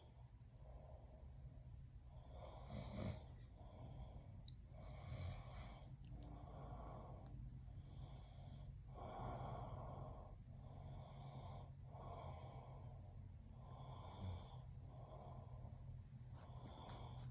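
A man snoring in his sleep: faint, regular snoring breaths, each about a second long, following one another about every one and a half seconds, over a low steady hum.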